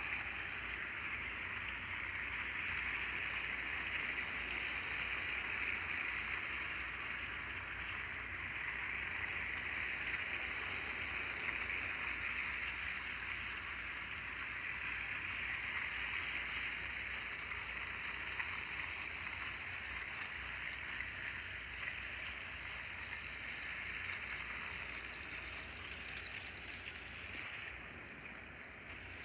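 Several battery-powered Thomas & Friends TrackMaster toy engines running on plastic track, their small motors making a steady whirring hum that dips slightly near the end.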